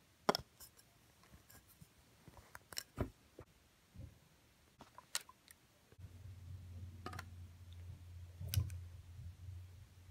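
Clarinet parts and case being handled: scattered sharp clicks and light knocks, a few close together around three seconds in and the loudest one near the end. A low steady hum comes in just past halfway.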